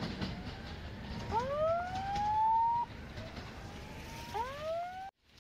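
Electronic siren-like wail sweeping upward in pitch for about a second and a half, then cutting off abruptly, repeating about every three seconds; the last sweep is cut short near the end.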